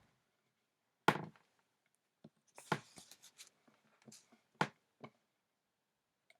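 A few sharp knocks and taps, the loudest about a second in, then two more near the middle, with softer clicks between: objects being handled and set down.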